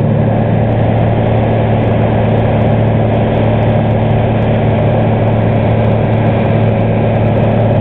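Single-engine light aircraft's piston engine and propeller running steadily in flight, an even drone with a strong low hum.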